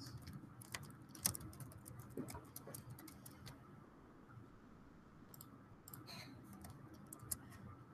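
Faint, rapid clatter of computer keyboard typing and clicks, in two spells with a pause of about two seconds between them.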